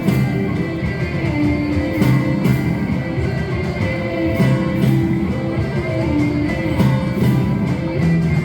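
Live instrumental ensemble music: strummed guitar with a held melody line on top and a steady rhythmic pulse.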